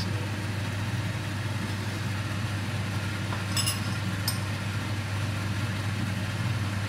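Steady low mechanical hum with an even hiss, the constant running noise of a kitchen appliance. Two short ringing clinks come a little past halfway.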